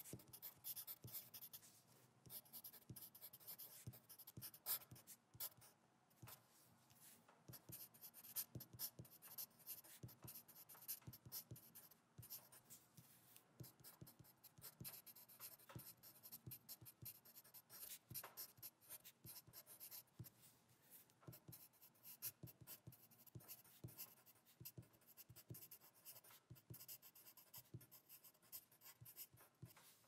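Faint handwriting on paper: a writing tool scratching in quick, irregular strokes and small taps throughout.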